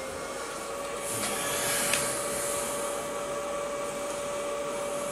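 A steady machine hum: an even whirring noise with one held mid-pitched tone running through it.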